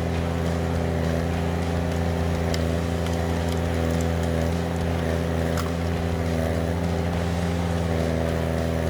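Log splitter's engine running at a steady speed, an even drone with a few faint clicks.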